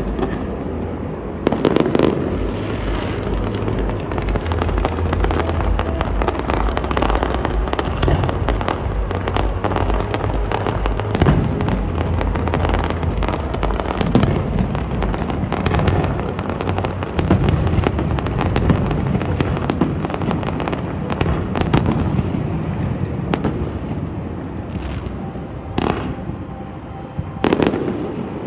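Fireworks display in full barrage: a dense run of overlapping bangs and crackling, with louder single reports every second or two over a continuous low rumble.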